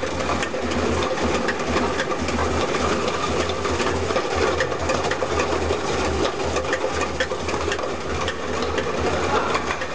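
Automatic plastic-bottle unscrambler running: a steady low machine hum with a dense, irregular clicking of plastic bottles knocking against each other and the guides as they are fed out along the conveyor.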